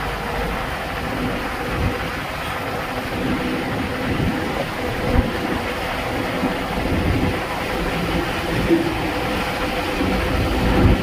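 Wind buffeting the microphone of a camera held on a moving vehicle, over the steady road and engine noise of the vehicle driving along, with a faint steady hum.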